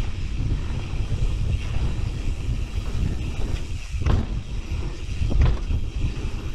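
Wind buffeting the microphone and a steady low rumble of knobby tyres rolling fast over a dirt trail on a Propain Spindrift enduro mountain bike, with two sharp knocks as the bike clatters over bumps about four and five and a half seconds in.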